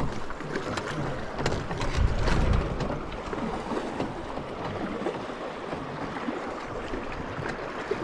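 River water rushing and lapping against a drifting boat, with small splashes and ticks throughout and a louder low rumble about two seconds in.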